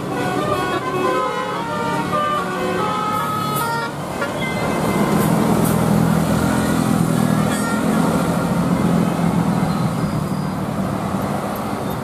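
Bus telolet horn, a Basuri multi-tone air-horn set, playing a fast tune of short stepped notes that stops about four seconds in. Then the bus's engine runs loud and steady as the coach passes close by, fading near the end.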